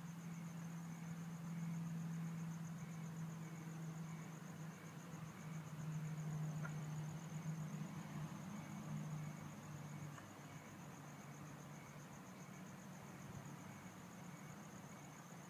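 Crickets chirping, a steady high pulsing trill with fainter regular chirps beneath it, over a low hum that is louder for the first two-thirds and then fades down.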